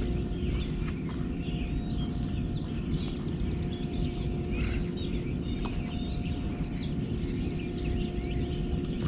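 Many small birds chirping and singing over a steady low rumble, with a faint steady hum underneath.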